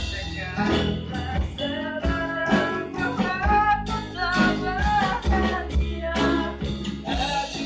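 A small band rehearsing: acoustic guitars strummed over an electric bass line, with a voice singing a melody over them.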